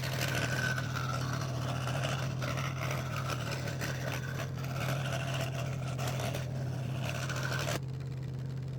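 Scroll saw running, its blade cutting through thin 3 mm craft plywood with a fast, even chatter. The cutting stops about a second before the end while the saw's motor hums steadily on.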